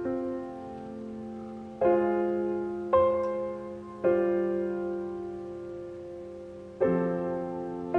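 Slow solo piano background music: chords struck every one to three seconds, about five in all, each ringing and dying away.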